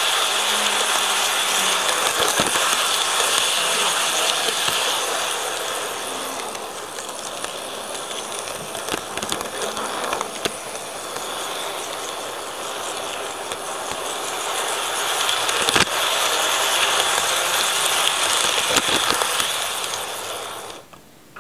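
KATO N-gauge model train rolling along its track, heard from a camera riding on a wagon: a steady rushing hum of wheels and motor with occasional sharp clicks as the wheels cross rail joints and points. It stops suddenly near the end.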